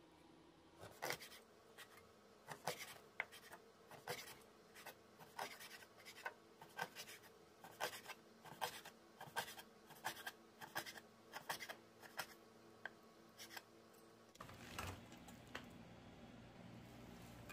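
Chef's knife slicing half-dried flatfish fillets into strips on a wooden cutting board: each stroke ends in a sharp tap of the blade on the board, irregular, about one or two a second. The chopping stops near the end.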